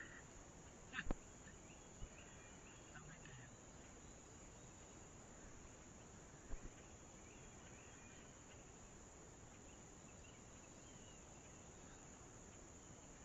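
Near silence: faint outdoor background with faint insect chirps and a few soft clicks, about a second in, at two seconds and about six and a half seconds in.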